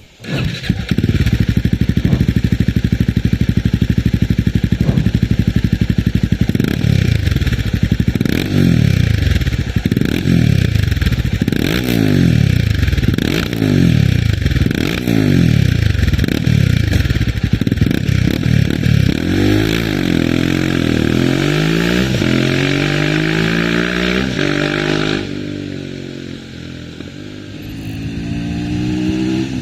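Royal Enfield Himalayan 450's liquid-cooled single-cylinder Sherpa engine breathing through a de-cat pipe and aftermarket slip-on muffler. It starts about half a second in and idles in a steady beat, then is revved sharply about eight times in a row. From about two-thirds of the way through it pulls away under acceleration, fading briefly and growing louder again near the end.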